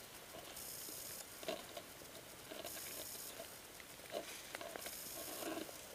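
Slow, cautious footsteps on the forest floor: a soft crunch about every two seconds.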